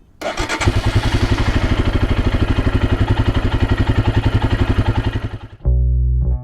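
Royal Enfield Himalayan's single-cylinder engine idling with an even beat of about ten pulses a second, fading out about five seconds in. Music with bass and guitar comes in near the end.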